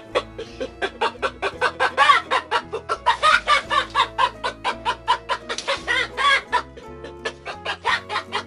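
A rapid run of short animal calls, about four or five a second, each arching up and down in pitch, over background music.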